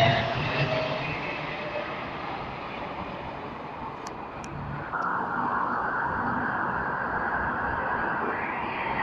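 Jet engines of military aircraft passing overhead: a steady rushing noise from a C-17 Globemaster transport, changing abruptly about five seconds in to the noise of a large transport jet flying with two Typhoon fighters.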